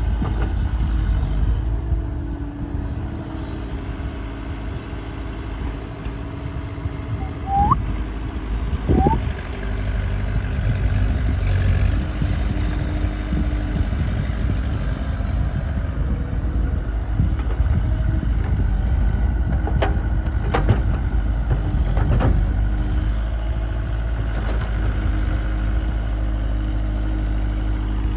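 Diesel engine of a backhoe loader working, a steady low rumble throughout. Two short rising chirps come about eight and nine seconds in, and a few sharp knocks about twenty seconds in.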